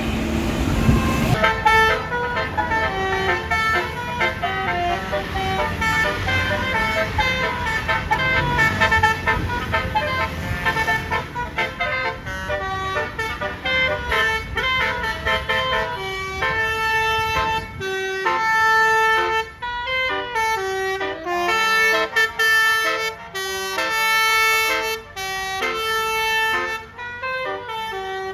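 A tour bus's basuri telolet horn playing a melody as quick runs of short, stepped horn notes. A low rumble lies under the first two-thirds and stops, leaving the tune in clearer phrases with short gaps.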